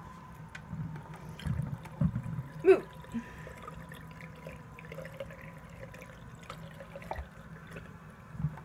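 Toilet tank refilling after a flush: water running and trickling with a steady low hum. A brief squeal rising and falling in pitch is heard about two and a half seconds in.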